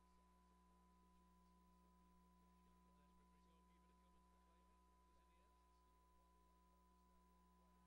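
Near silence, with only a faint steady electrical hum and a thin constant tone.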